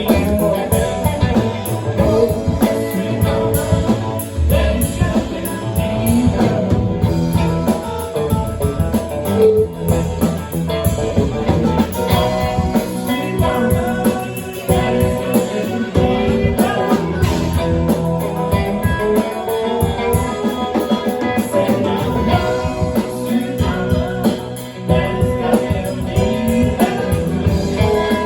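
Live blues band playing an instrumental passage, with guitar to the fore over a steady beat.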